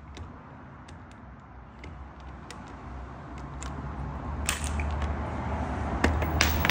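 Scattered light clicks and knocks over a low rumble that grows louder, as a Makita half-inch cordless impact wrench is handled and its socket brought up against the wheel's lug nuts. The wrench is not running.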